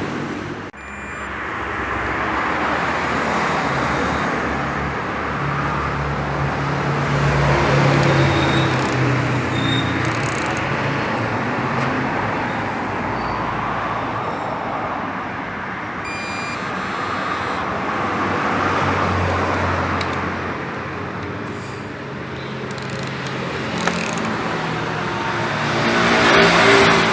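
Steady rushing background noise that swells and fades every few seconds, with one sharp click about 24 seconds in.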